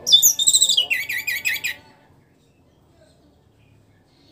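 Orange-headed thrush (anis merah) singing one fast phrase of about two seconds, a quick run of whistled notes that starts very high and steps down in pitch.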